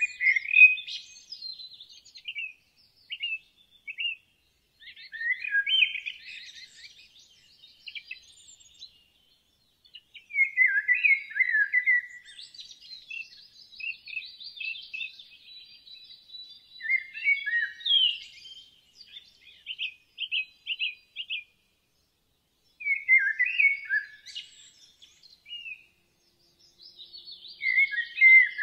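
Birds singing: short chirping, whistled phrases that come every few seconds with quiet gaps between them. About two-thirds of the way through there is a run of evenly repeated notes at about three a second.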